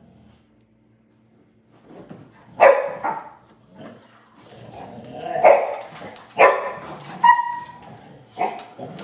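Dogs barking in a rough play scuffle. After a quiet first couple of seconds there are about five sharp barks, one of them a short higher-pitched yelp.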